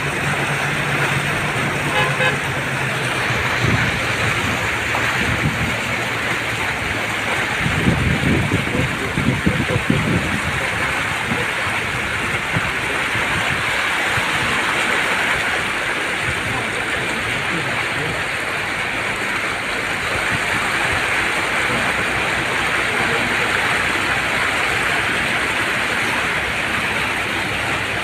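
Vehicle wading through floodwater on a road: a steady rush of water churning around the car along with its engine. About eight to ten seconds in, a spell of louder low rumbling and bumps.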